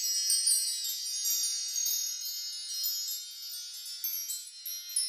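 Sparkling wind-chime sound effect: many small high bell-like tones ringing and overlapping, thinning out over the last few seconds.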